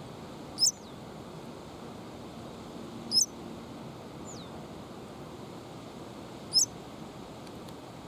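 Three short, high-pitched chirps from a small bird, about three seconds apart, the first two each trailed by a faint falling whistle, over a steady rush of wind.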